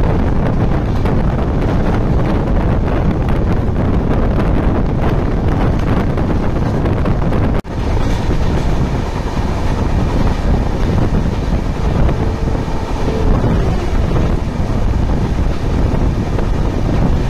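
Loud rushing and rumbling of passenger coaches running close alongside at speed, heard from a moving train with wind buffeting the microphone. The sound breaks off abruptly about halfway through and resumes just as loud, at an edit between two passing trains.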